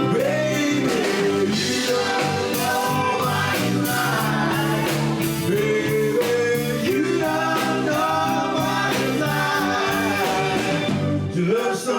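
Band music with a steady beat and a singer's voice bending through held notes.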